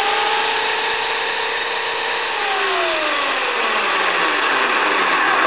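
Electric chainsaw running free, not cutting: the motor's whine climbs as it spins up and holds steady, then, a little over two seconds in, falls steadily in pitch as the saw winds down, with the chain rattling throughout.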